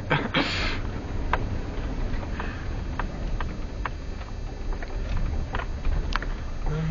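Suzuki Grand Vitara's 2.5-litre V6 running low and steady under load, with scattered sharp knocks and clunks from the body and suspension as it crawls over rough, muddy ground. A short hiss comes about half a second in.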